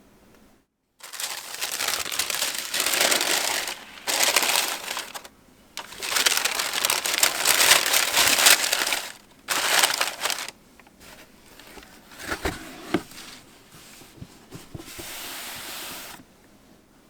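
Packing paper crumpling and crinkling in several long bursts as a new pair of sneakers is unwrapped from its box, with a few light knocks and taps partway through.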